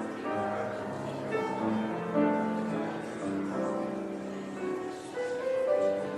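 Piano playing a slow piece, with held notes and chords changing every half second or so.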